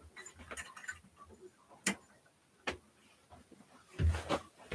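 Faint handling noises from someone working on a room light, with two sharp clicks a little under a second apart, then louder bumping and rustling near the end.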